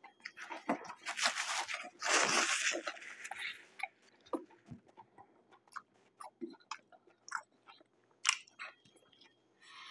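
A person chewing crunchy food close to the microphone. There are loud crunches in the first three or four seconds, then quieter scattered chewing clicks.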